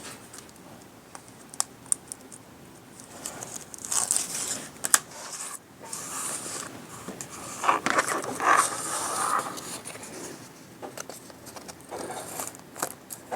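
Craft materials being handled: irregular crinkling, scraping and rustling with a few sharp clicks, loudest about two-thirds of the way through.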